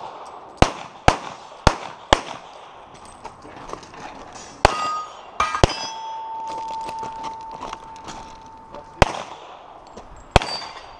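Handgun shots fired in a practical pistol stage: four shots about half a second apart, then a few more scattered shots with a pause between. Struck steel targets ring after some of the shots, and a steady ringing tone holds for about three seconds in the middle.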